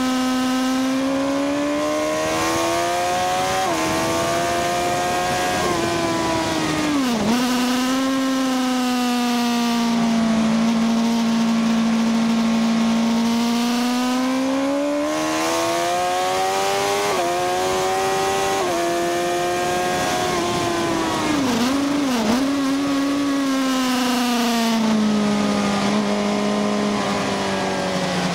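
Sport motorcycle engine on a circuit lap, heard from on board: the revs rise and fall slowly through the corners, with a few sudden jumps and dips in pitch at gear changes, over steady wind rush.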